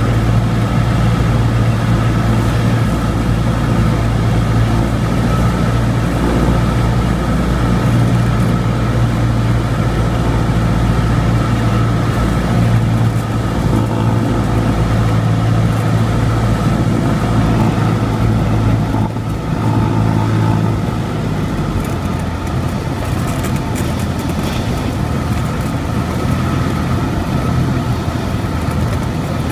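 Cessna 172's piston engine and propeller droning steadily inside the cabin during the landing approach. About two-thirds of the way through, the low hum fades and the sound drops a little, as power is pulled back for the landing.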